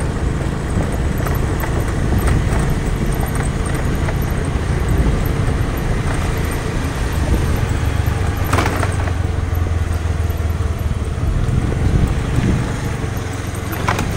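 Motor scooter being ridden along a narrow street: its small engine runs steadily under road and wind noise, with a brief sharp knock about eight and a half seconds in and another near the end.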